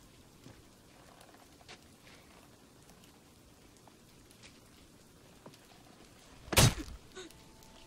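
A single sudden loud impact about two-thirds of the way in, with a short ringing tail and a few faint echoes, over a faint background hiss.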